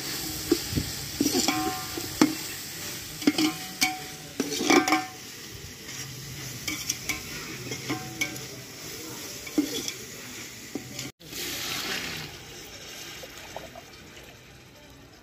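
Steel slotted ladle scraping and clinking against a large aluminium pot as sliced onions, tomatoes and carrots are stirred, with a steady frying sizzle underneath. Late on, a short louder hiss as water goes into the hot pot.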